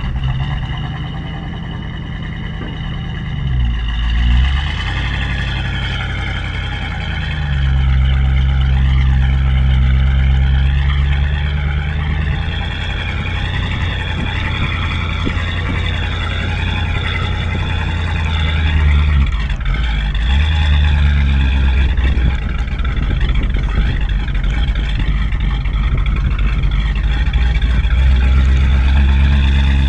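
1977 Dodge Chinook motorhome's engine, just started, pulls away and drives slowly along a dirt track. Its drone swells and eases with the throttle. Wind and road noise reach the microphone mounted outside on the body.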